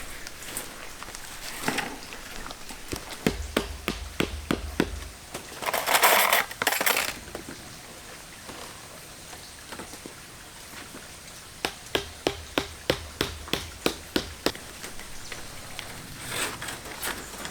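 Stones clicking and clattering against each other, with a run of quick knocks about four a second near the middle. About six seconds in there is a louder one-second rush of scraping, sliding gravel.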